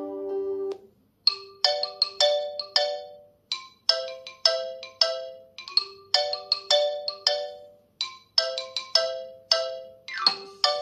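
OnePlus 10 Pro ringtones playing. A held chord ends within the first second. After a short pause a new ringtone starts: a bright, repeating melody of struck notes that fade quickly, several a second, growing busier near the end.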